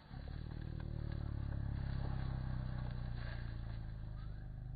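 A steady, low engine-like drone that starts suddenly and runs with a fine even pulsing, easing off slightly near the end.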